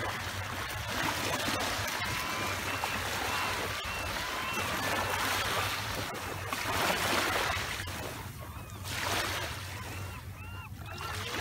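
Small waves lapping and washing over a pebble beach. From about ten seconds in, a bird calls over the water about twice a second in short honking notes.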